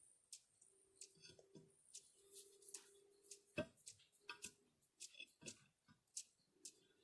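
Near silence with faint, irregular small clicks and ticks and one sharper knock about three and a half seconds in.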